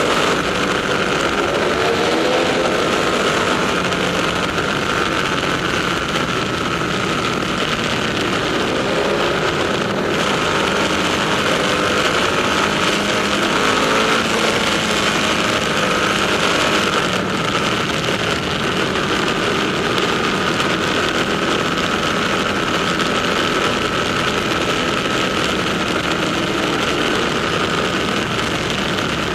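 Ducati motorcycles running through a road tunnel: a steady, loud drone of engines and road noise. The engine notes waver and shift in pitch a couple of times.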